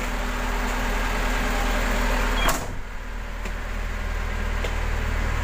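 Medium bus's engine idling steadily while its newly refitted air-conditioning system is test-run. A brief click comes about two and a half seconds in.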